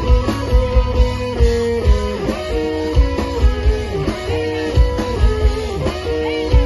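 Instrumental passage of rock music: an electric guitar plays held and bent notes over bass and a steady kick-drum beat.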